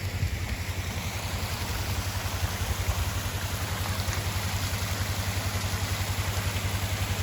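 Rushing floodwater, a steady hiss, over a vehicle engine idling with a regular low throb.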